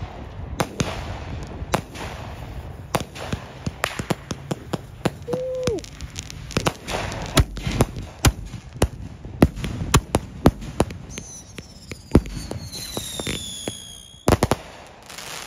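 Fireworks fired from a rack of ground tubes, going off in a rapid, irregular string of sharp bangs. Near the end several overlapping whistles fall in pitch.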